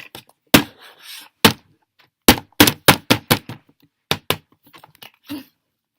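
Slime being squeezed and handled, giving about a dozen sharp clicks and thunks at irregular intervals, with a quick run of them in the middle. The slime is runny rather than firm.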